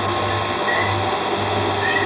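Steady hiss and low hum from a doorbell camera's microphone, with two brief high chirps, the first about two-thirds of a second in and the second near the end.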